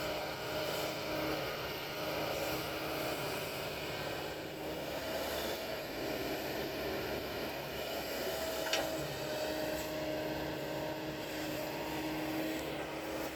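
Kobelco excavator's diesel engine running steadily under work, with a steady hum, and a single sharp tick about two-thirds of the way through.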